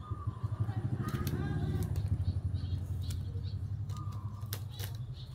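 An engine running and passing by, growing louder for about two seconds and then slowly fading. A few light clicks come near the end.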